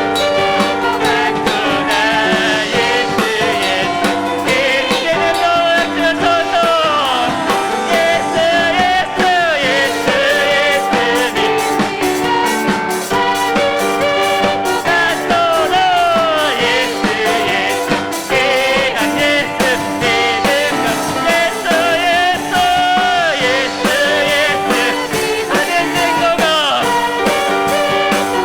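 Live worship band playing a praise song: a sung melody over piano and drums, steady and continuous.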